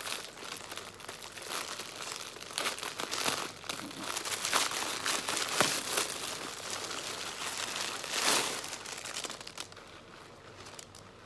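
Packaging being torn open and unwrapped by hand: dense crinkling and tearing with a few sharper rips, dying down near the end.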